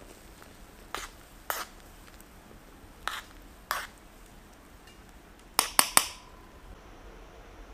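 Metal cookware and utensils clinking: four separate clinks in the first four seconds, then three quick clinks in a row about six seconds in, the last one ringing briefly.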